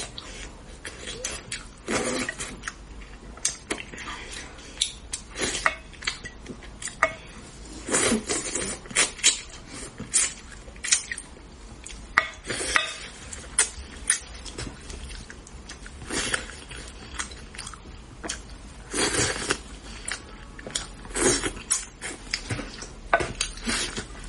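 Eating utensils clinking and scraping against a dish, in irregular short clatters, while spicy braised fish is being eaten.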